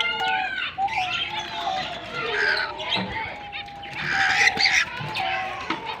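Cockatiels calling: a run of whistled notes with two bursts of harsher, noisier calls, the louder one about four and a half seconds in.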